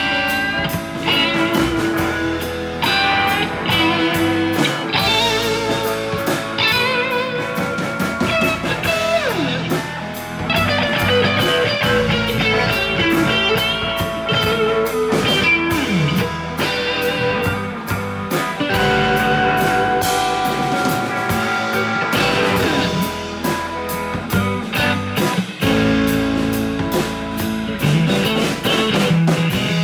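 Blues music led by an electric guitar, with bent notes, over a drum kit.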